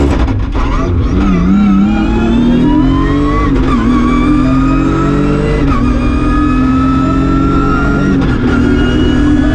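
BMW E36 M3 straight-six engine heard from inside the cabin under hard acceleration. Its pitch climbs steadily and drops sharply at each upshift, about 6 and 8 seconds in.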